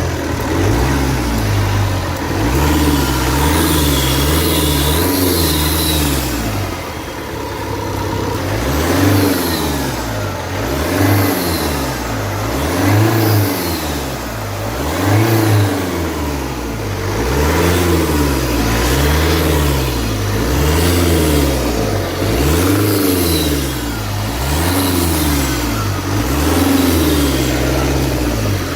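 Opel 1.9 CDTI four-cylinder turbodiesel revved up and back down over and over, about every two seconds. The noise under acceleration is the sign of an intake air leak.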